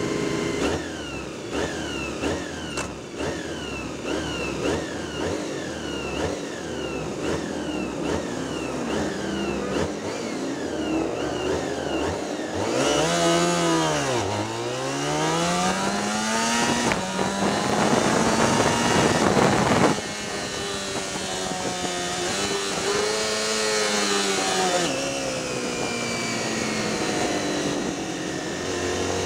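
Sport motorcycle engines revving in quick repeated blips on the starting grid, then the onboard bike launches about twelve seconds in, its engine pitch climbing and dropping back in steps as it shifts up under hard acceleration, with a rush of wind noise. Near the end the revs fall and then climb again.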